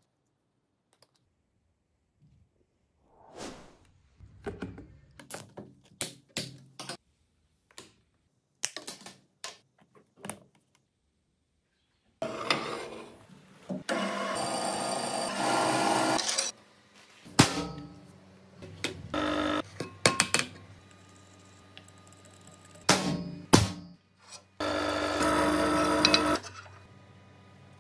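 Workshop handling sounds: clicks and knocks as parts and a push-in pneumatic fitting are put together. A drill press motor then starts and runs steadily with a ringing whine for a few seconds, followed by more sharp knocks. Near the end, the drill press bores into aluminium plate.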